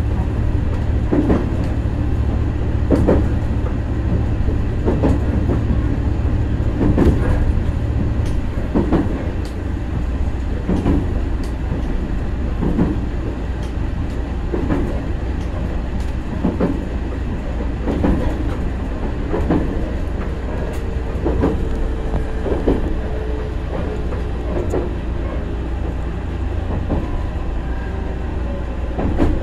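HB-E300 series Resort Shirakami diesel-hybrid train running along jointed track, heard from inside the carriage. There is a steady low rumble, with a wheel-over-rail-joint clack about every two seconds that comes a little faster in the second half.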